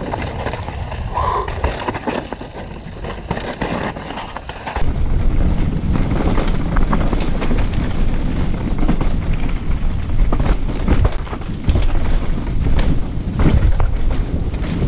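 Mountain bike descending a rough trail: tyres rumbling and the bike rattling over the ground, with wind buffeting the action camera's microphone. Noticeably louder from about five seconds in.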